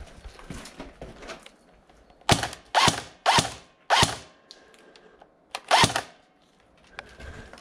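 Airsoft electric gun firing five short bursts of rapid shots. The last burst comes after a pause of nearly two seconds.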